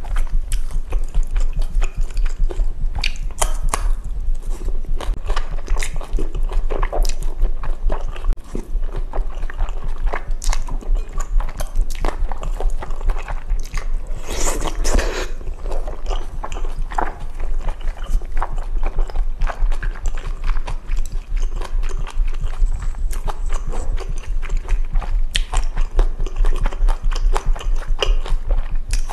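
Close-miked eating sounds: chewing and slurping spicy jajangmyeon made with Chinese glass noodles, full of small wet clicks, with a longer, louder slurp about halfway through. A steady low thumping sits underneath, which the uploader takes for her own heartbeat picked up by the microphone.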